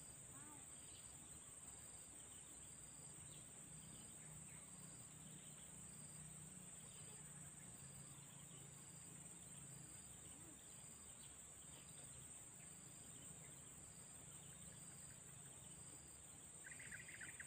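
Faint insect chorus: a steady high-pitched buzz with a short chirp repeating about once a second, and a brief rattling call near the end.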